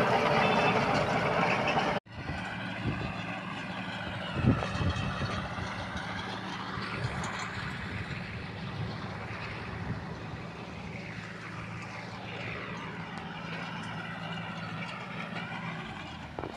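Farm tractor's diesel engine running steadily while it pulls a sugarcane ratoon manager through the field. It is loud and close for the first two seconds, then, after a sudden break, quieter and farther off, with one brief knock a couple of seconds after the break.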